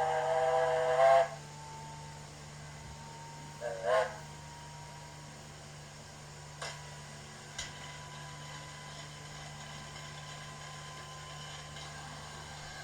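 Steam locomotive whistle played by a model K class locomotive's DCC sound decoder through its small onboard speaker. A long chime whistle cuts off about a second in, and a short double toot follows about four seconds in. After that there are a couple of clicks and a faint steady hiss.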